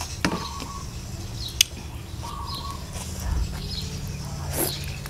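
Eating sounds from biting into a whole balut (fertilised duck egg) dressed in spicy sauce: fingers working in the wet salad, then a wet bite and chewing near the end. Short bird chirps sound in the background.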